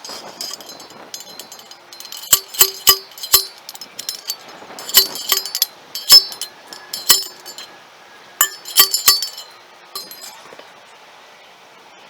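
Repeated sharp clinks and clanks of hard objects striking each other and ringing. They come in clusters: a few about two and a half seconds in, more around five to seven seconds, and another group near nine seconds.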